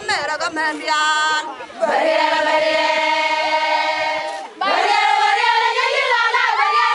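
A group of women singing together in long held notes, in two phrases with a short break about four and a half seconds in.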